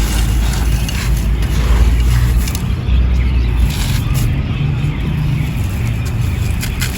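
Dry claypot clay crumbled by hand: scattered crunchy crackles over a steady low rumble.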